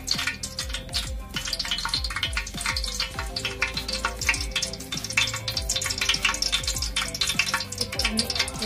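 Cooking oil heating in a large metal pot, sizzling with a dense, steady crackle of tiny pops as it comes up to frying heat.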